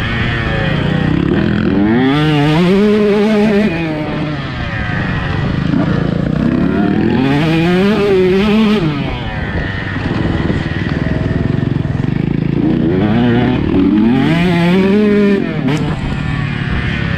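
Two-stroke motocross bike engine revving hard three times, its pitch climbing with each run and then dropping off in between as the throttle is rolled off.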